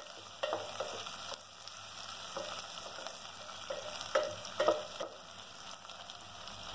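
Sliced onions, green chillies and chunks of garlic and ginger sizzling in hot oil in a pressure cooker as they are sautéed, stirred with a wooden spatula that scrapes and knocks against the metal pot. The hiss of frying is steady, with a few louder spatula knocks, the loudest two a little after four seconds in.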